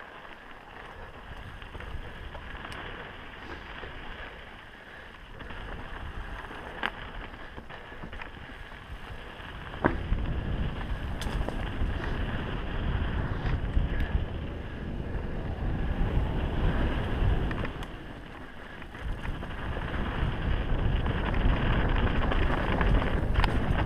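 Mountain bike riding fast down rocky dirt singletrack: wind buffeting a helmet-mounted camera's microphone over tyre noise and bike rattle, with scattered sharp knocks as the wheels hit rocks. The wind rumble gets louder about ten seconds in, dips briefly, then builds again.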